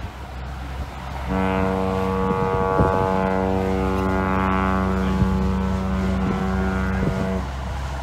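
Cruise ship's horn sounding one long blast of about six seconds, a steady low tone rich in overtones, starting a little over a second in.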